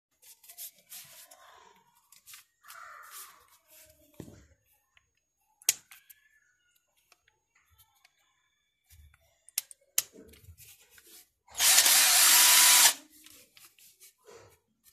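12V cordless drill being handled, with scattered sharp clicks and knocks, then its motor run with the trigger for about a second and a half, a loud steady whir that stops abruptly.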